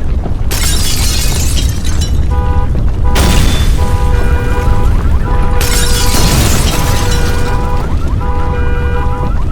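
Loud, continuous deep rumbling with three bursts of crashing, explosion-like noise. From about two seconds in, music made of a pulsing chord of steady tones plays over it.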